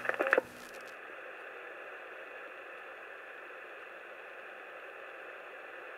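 Steady, even hiss like radio static, after a brief louder burst at the very start.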